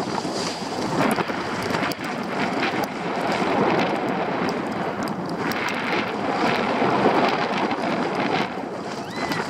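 Skis hissing and scraping over packed snow on a downhill run, mixed with wind rushing over the microphone.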